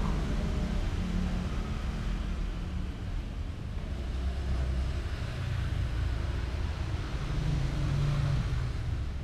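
Gas stove burner running under a pot of boiling noodles: a steady low rumble with a faint bubbling hiss.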